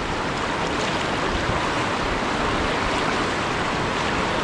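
Swift, swollen river current rushing through shallow rocky rapids, heard close from an inflatable tube riding on the water: a steady, even rush with no let-up.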